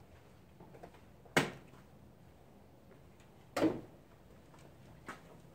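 Jeep Wrangler JK hood being lowered and shut: a sharp thud about a second and a half in, a second thud about two seconds later, and a lighter knock near the end.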